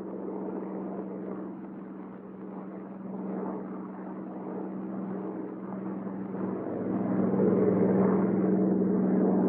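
Bell P-39 Airacobra's Allison V-1710 V12 engine running steadily in flight with the throttle opened up. The drone grows louder about two-thirds of the way through.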